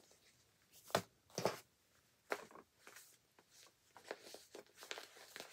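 Skeins of yarn being handled and rearranged in the hands: a string of soft, brief rustles, the loudest about a second in.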